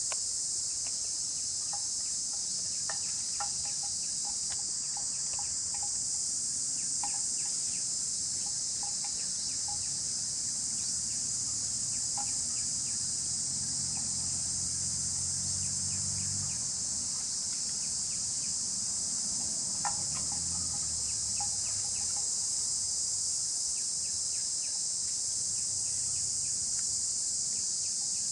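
Steady, high-pitched chorus of insects, with faint scattered ticks and a faint low hum that comes and goes around the middle.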